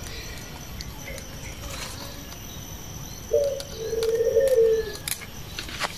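A dove cooing: a short coo, then a longer drawn-out one a little over three seconds in. A couple of sharp clicks near the end.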